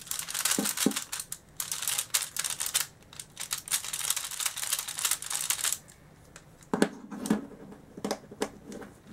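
Yuxin Little Magic Pyraminx being turned quickly by hand: a fast, dense run of small plastic clicks as the layers turn, which the cuber finds very smooth. About six seconds in, the turning slows to separate, sparser clacks.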